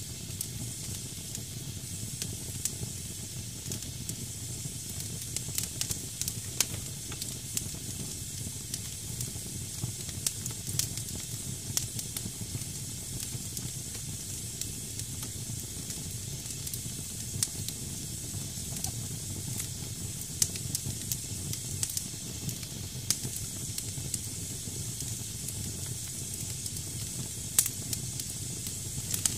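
Damp firewood burning in a fireplace: a steady hiss from moisture boiling out of the logs, with frequent irregular crackles and pops, one sharper pop near the end.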